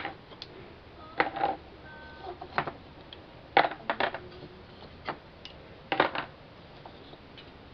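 Small spring clamps being unclipped from a glued wooden model and set down on the workbench: a string of sharp clicks and clacks, about eight, spaced irregularly.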